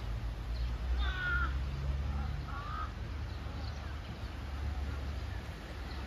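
A bird gives two short, harsh calls, the first about a second in and a fainter one near three seconds, over a steady low rumble.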